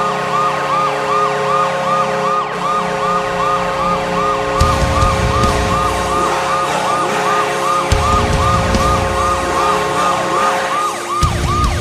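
Hockey goal horn sounding: a steady held horn tone with a siren-like whoop repeating over it about three times a second.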